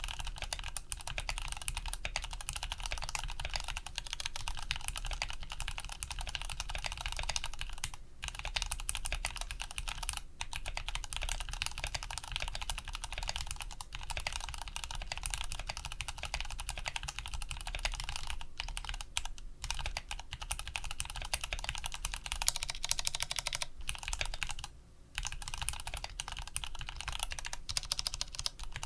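Fast continuous typing on a custom mechanical keyboard with lubed Cherry MX Brown tactile switches, GMK keycaps and an aluminium plate: a dense run of key clacks with a few short pauses and one longer break about 25 seconds in.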